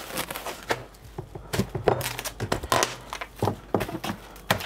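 Plastic cling film being pulled off its roll and crinkling as it is handled, in irregular crackles, with a few knocks as the roll is put down on the counter.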